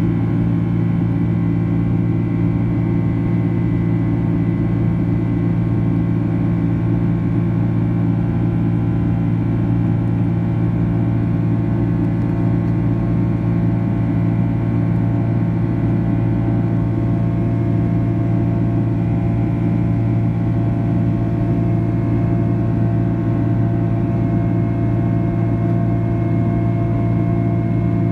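Steady drone of a Boeing 767-300ER's turbofan engines and airflow, heard from inside the cabin in flight: a constant low hum with fainter steady whine tones above it and no change in level.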